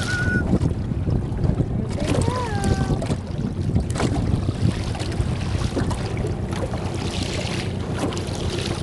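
Wind buffeting the microphone, with water slapping against a small boat's hull in scattered splashes. A brief high call that rises and falls comes about two seconds in.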